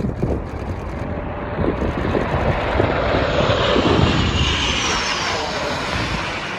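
An airplane flying past. Its loud engine noise runs steadily, with a whine that sweeps down in pitch past the middle.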